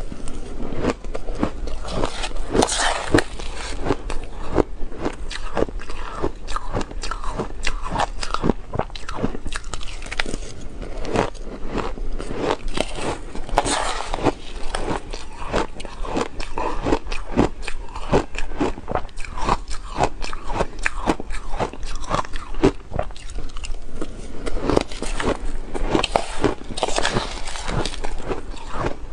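Crushed ice being bitten and chewed with the mouth full, a dense run of crunching cracks, close to a clip-on microphone.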